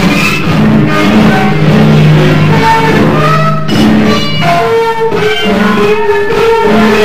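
Instrumental soundtrack music: a line of held notes moving over a low sustained note, with a long steady higher note coming in about halfway through.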